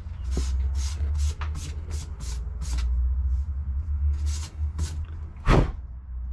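A hand rubbing dust off the glass face of an old bus's dashboard gauge: a run of short brushing strokes, about two a second, with one louder stroke near the end, over a steady low rumble.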